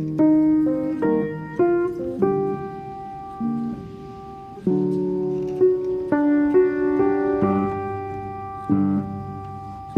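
Background music: piano chords and notes struck one after another, each fading out before the next.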